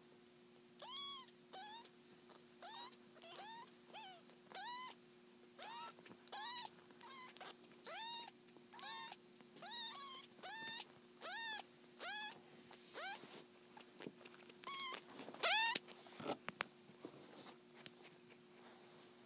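Three-week-old kittens mewing: a string of short, high, thin cries, about one a second, each rising and falling in pitch. The cries stop about three quarters of the way through, just after the loudest one.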